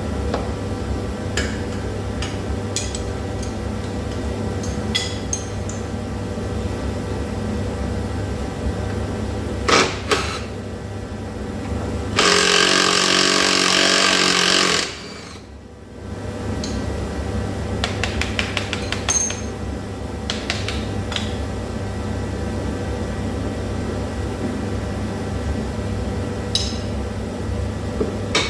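Workshop tool sounds during suspension strip-down: scattered clicks and knocks of hand tools, and a power tool running in one loud burst of about two and a half seconds midway, over a steady low hum.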